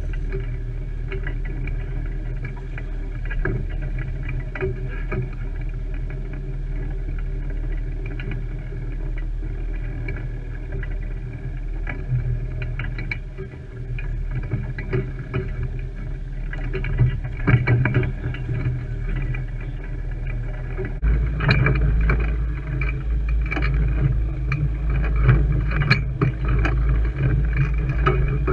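Small boat's outboard motor running steadily, with occasional water slaps or knocks on the hull. About two-thirds of the way through, the engine note changes and gets louder.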